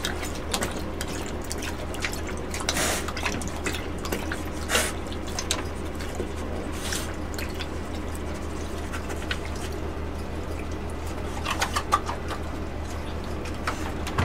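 A dog lapping and smacking at a bowl: irregular wet clicks and slurps, a few of them louder, over a steady low hum.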